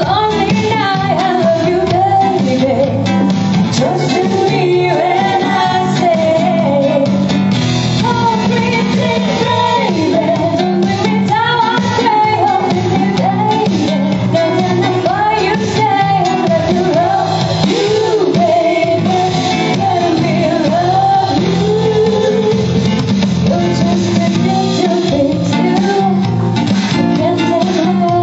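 Live pop music from a guitar-backed trio: a wavering melody line over steady guitar and bass accompaniment, in a passage without sung words.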